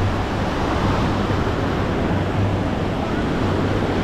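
Busy beach ambience: a steady wash of noise from surf and wind buffeting the microphone, with faint voices of people in the background.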